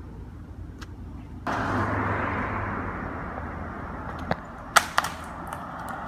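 Road traffic: a steady rush of passing vehicles with a low hum, starting abruptly about a second and a half in. Three sharp clicks come near the end, the loudest just before the end.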